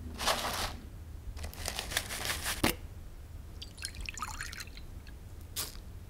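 Breakfast cereal poured from a cardboard box into a large ceramic mug, a dry rattling rush ending in a sharp knock. Then milk poured from a carton into it, splashing and gurgling for about a second.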